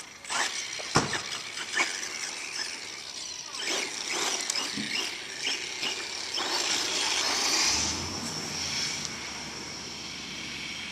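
1/10-scale RC truck driving on asphalt, its motor and tyres running, with a few sharp clicks in the first two seconds. It gets louder for a stretch about six to eight seconds in, then carries on more evenly.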